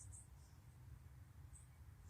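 Near silence: a faint steady low hum with a few faint, high-pitched clicks near the start.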